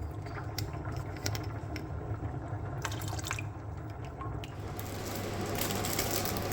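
Water running and filling, with small clicks and knocks in the first part; the running-water hiss grows louder about two-thirds of the way in, over a steady low hum.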